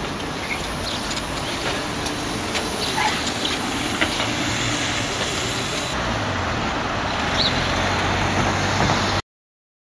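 Solaris Trollino 12 trolleybus driving past on a city street: steady tyre and traffic noise with a few light clicks, a low hum coming in during the second half. The sound cuts off suddenly near the end.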